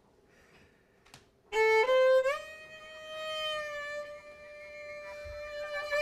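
Bowed violin entering about a second and a half in after near quiet, rising through two short notes into one long held note that swells.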